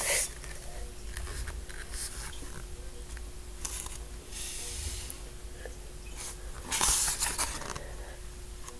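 Handling noise of a picture book held up and moved about close to the microphone: a low rumble with several short papery rustles, the loudest about seven seconds in.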